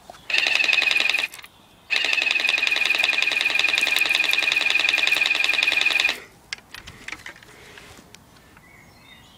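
Battery-powered pump motor of a Nerf Super Soaker Lightningstorm water blaster buzzing as it fires a stream. It runs in two bursts: about a second, a short break, then about four seconds before it stops.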